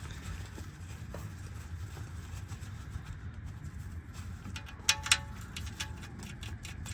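Two light metallic clinks about five seconds in, with a short ring, over a low steady rumble, then a run of faint ticks, as small metal parts are handled under the car during the oil change.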